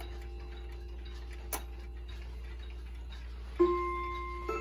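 Howard Miller Sandringham wall clock ticking, with a sharp click about a second and a half in. Near the end the hammers strike the first two notes of its chime on the newly replaced chime rods, each note ringing on, as the chime starts at the hour.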